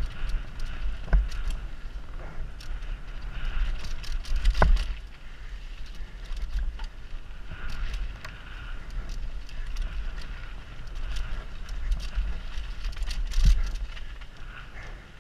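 Downhill mountain bike running fast over a rough, rocky dirt trail: low wind rumble on a helmet-mounted camera's microphone under the steady clatter and rattle of the bike, with sharp knocks from bigger hits about a second in, a little before five seconds in and near the end.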